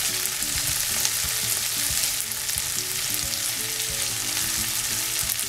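Chopped onion, potato, green peas and tomato sizzling in oil in a nonstick frying pan, stirred with a silicone spatula while the tomato fries until soft.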